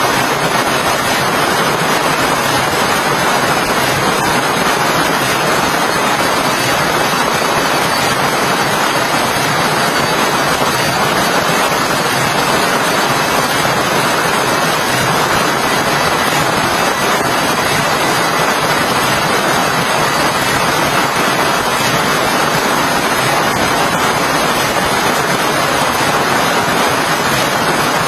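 Heavy rain falling, a loud, steady, even hiss with no separate drops or gusts standing out.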